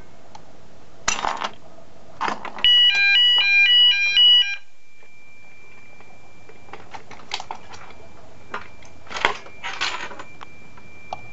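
Fire alarm sounders, Roshnie units on a Gent Xenex system, set off from a manual call point: a loud, quickly alternating two-tone alarm sounds for about two seconds, a little over two seconds in, then stops. A thin steady high tone carries on faintly afterwards, with a few clicks of handling.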